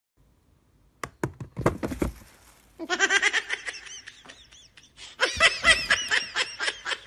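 A few sharp plastic knocks from a swing-top bin's lid about a second in, then a person laughing in quick, high-pitched giggles, in two long bouts.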